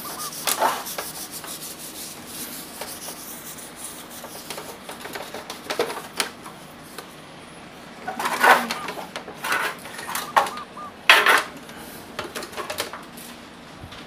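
Gasoline-soaked tissue rubbing and wiping over the parts of a box fan in irregular scrubbing strokes, with several louder swipes in the second half.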